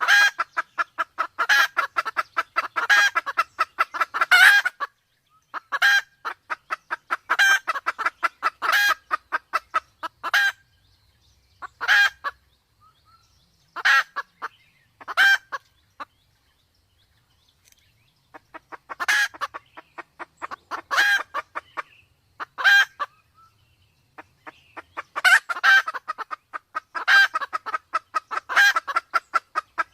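Red junglefowl giving fast runs of clucks in bouts of a second or two, separated by short pauses. The calls thin out to a few single notes with a brief gap in the middle, then pick up again.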